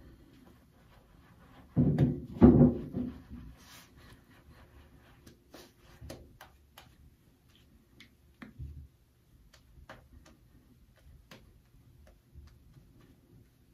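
Shaving brush face-lathering a beard: faint scattered crackles and ticks of bristles and lather on the skin, with two louder muffled thumps about two seconds in.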